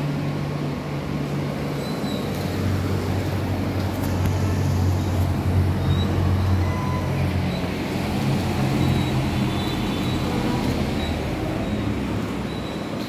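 Steady low mechanical rumble with a constant hum, of the kind that comes from road traffic or machinery.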